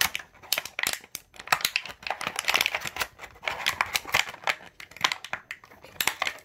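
Small plastic Beyblade spinning-top parts handled and fitted together in the hands, close to the microphone: an irregular run of clicks, taps and short rustles.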